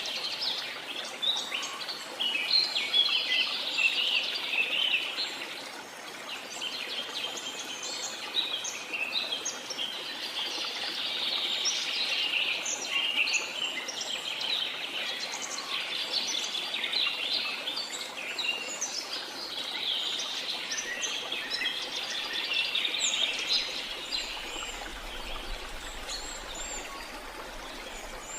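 A chorus of many birds chirping and calling over one another, with short overlapping calls that never stop, over a faint steady hiss.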